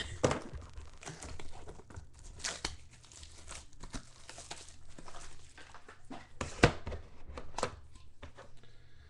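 Plastic shrink wrap being torn and crinkled off a sealed trading-card box, with a few sharp knocks as the box and its round metal tin are handled, the loudest about two-thirds of the way through.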